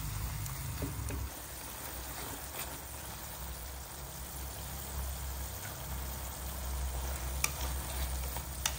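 King oyster mushrooms with lemongrass and chili sizzling steadily in a stainless steel frying pan, with a little added water helping them cook through. Chopsticks click sharply against the pan twice near the end.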